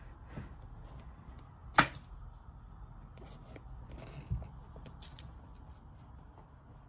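Kittens scrabbling and pawing in a crocheted yarn basket: light scratching and ticking of claws on the yarn, with one sharp click about two seconds in and a dull thump about four seconds in.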